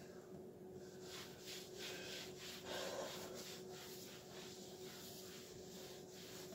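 A hand wiping a smooth glass-ceramic stovetop with a white wipe: faint, repeated back-and-forth rubbing strokes on the glass.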